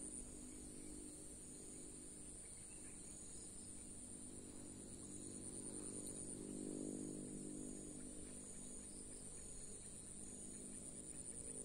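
Steady high-pitched insect chorus, with a second faint pulsing insect just beneath it, over a low hum that swells a little around the middle.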